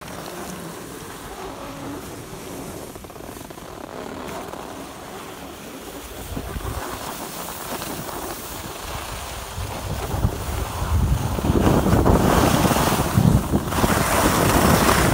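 Skis sliding over groomed snow with wind buffeting the microphone, a steady rushing noise that grows much louder about eleven seconds in as speed picks up.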